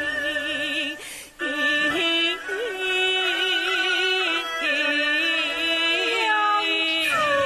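Yue opera music: a melody with wide vibrato over traditional Chinese ensemble accompaniment, breaking off briefly about a second in.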